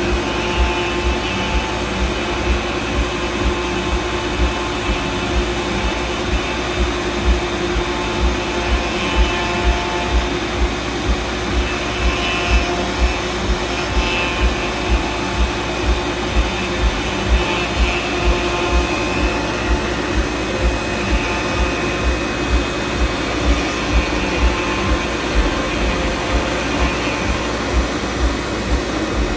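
Fox Alien 4040 CNC router at work: its 300-watt spindle runs steadily while the stepper motors whine at pitches that shift as the axes move. A regular low thump comes about twice a second.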